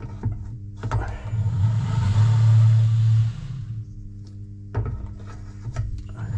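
Valve seat cutting machine's motor running in two bursts over a steady low hum: one from about a second in, lasting some two seconds, and another starting near the end, with a few clicks in between.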